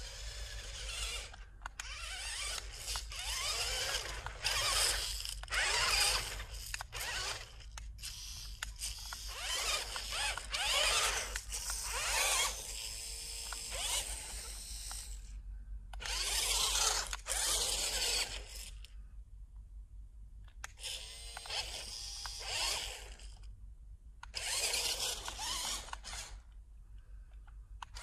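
Small electric RC rock crawler's motor and gearbox whirring in repeated bursts as the throttle is applied and released. The pitch slides up and down with each burst, and there are short pauses between them.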